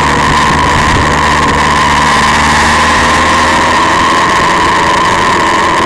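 Motorcycle engine running at a steady cruise, heard from an onboard camera with wind noise and a steady high tone over it.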